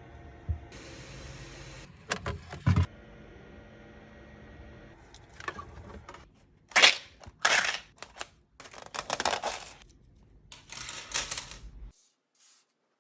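Hard plastic being handled: a short hiss, a few sharp knocks, then scattered clicks and scrapes that stop suddenly near the end.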